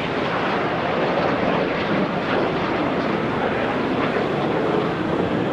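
CT-114 Tutor jet flying overhead, its single J85 turbojet engine giving a steady rushing jet noise.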